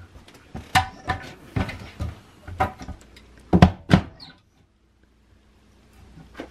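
About six sharp knocks on a wooden 2x4 stud as it is fitted into a door frame, irregularly spaced over the first four seconds, the last two the loudest. The sound then drops almost to nothing.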